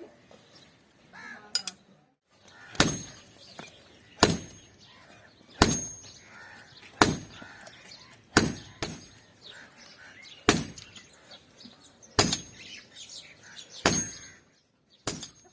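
Hammer blows on steel on an anvil, about ten single strikes roughly a second and a half apart, each ringing. This is the hand-forging of a cleaver blank.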